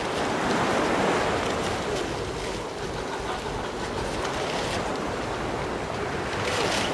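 Steady rushing noise of wind and water on a boat deck, with wind buffeting the microphone, swelling briefly about a second in.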